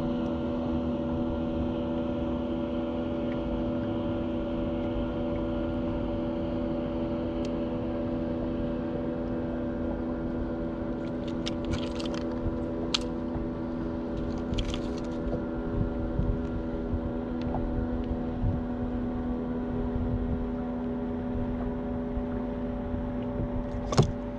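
A steady mechanical hum from the bass boat's machinery, an even drone of several fixed tones. A few light clicks and rattles come about halfway through, and a sharp knock comes near the end.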